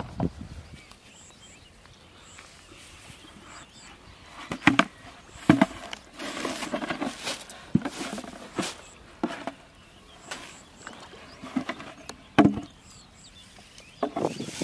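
Handling noises of a plastic basin and a plastic bag: scattered short knocks and clicks, a few sharp ones about five and twelve seconds in, and a stretch of rustling a little after six seconds.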